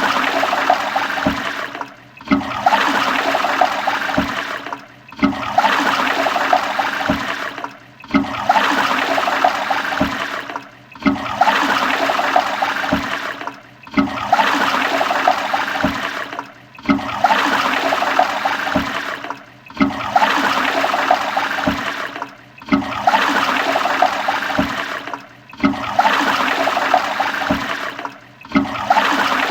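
Toilet flushing: a rush of water about two and a half seconds long, repeated about every three seconds with a brief drop between each.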